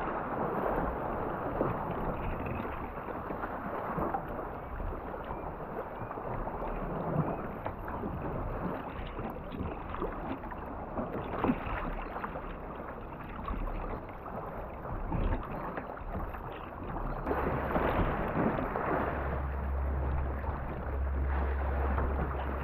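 Kayak paddling on the sea: irregular paddle-blade splashes and water sloshing around the boat, with a low rumble joining in for the last few seconds.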